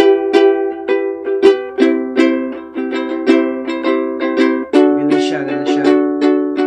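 Ukulele strummed in a steady rhythm, changing from an E minor chord to C and then to D.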